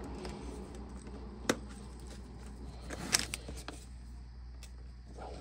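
A few light clicks and taps of a screwdriver working the screw that fastens a ring terminal to a battery terminal: one sharp click about one and a half seconds in and a short cluster around three seconds. A steady low hum runs underneath.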